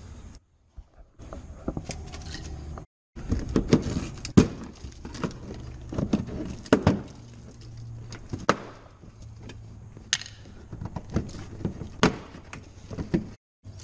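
Hands working a torx screwdriver and flexing the plastic wheel-arch liner of a Fiat Punto: irregular clicks, taps and knocks of plastic and metal, with scraping between them. The sound cuts out briefly twice near the start and once near the end.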